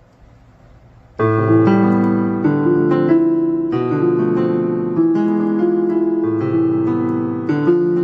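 Electric piano chords of a pluggnb beat, a slow progression of held chords that starts about a second in after faint hiss, with no drums.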